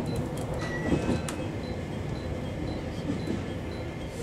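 JR Kyushu 303 series electric train heard from inside the driver's cab as it runs into a station: a steady low running rumble with a few sharp clicks in the first second and a half and faint high whining tones.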